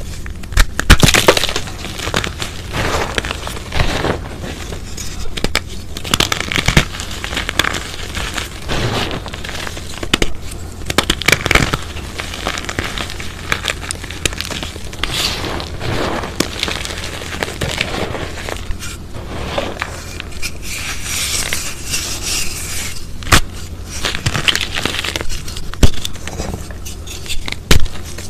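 Hands crushing and squeezing chunks of a sun-dried, super crunchy chalk cylinder in a bed of loose chalk powder: dense, dry crunching and crackling in irregular clusters of sharp snaps.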